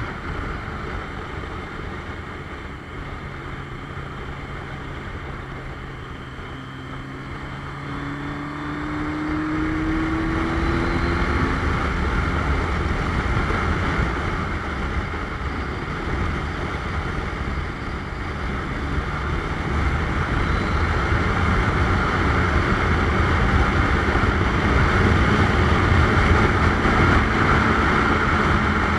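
Wind buffeting the microphone over the running engine of a 1985 Suzuki GS700ES inline-four motorcycle at road speed. A rising tone is heard around the middle, and the wind grows louder in the second half as speed builds.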